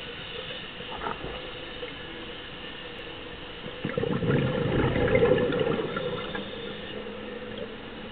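Scuba diver's exhaled breath bubbling out of the regulator underwater: a burst of bubbling starts a little under four seconds in and lasts about two and a half seconds, over a steady hum.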